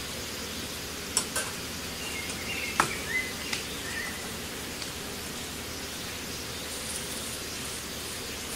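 A metal spatula clinks and scrapes against a steel kadai a few times in the first four seconds while a paratha fries, over a steady hiss.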